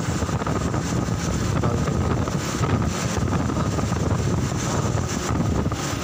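Motorcycle engine of a Philippine tricycle running steadily while riding along the road, with wind rushing on the microphone.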